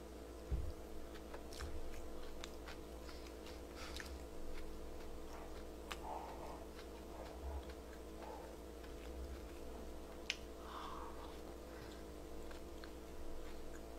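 Close-miked chewing of a dumpling, soft wet mouth sounds with scattered faint clicks.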